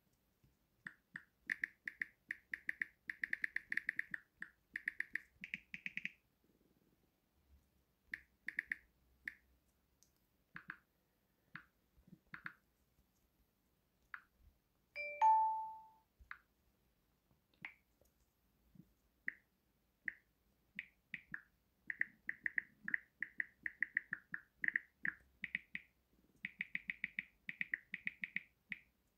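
Key-press sounds of a Samsung Galaxy phone's Samsung keyboard: quick runs of short, light clicks as keys are tapped, with slower single taps in between. About halfway through there is one short, louder tone of a few pitches, a system touch sound.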